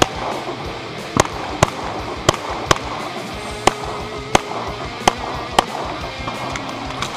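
Pistol shots from a Glock fired in quick succession at a timed competition stage, about nine sharp cracks, mostly in pairs about half a second apart with short breaks between pairs. Background music runs under the shots.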